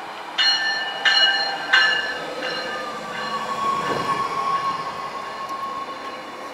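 NJ Transit River Line Stadler diesel light rail train arriving at a station platform, its warning bell striking about five times, the first three loudest and the rest fading. The train then passes close by with a steady high whine.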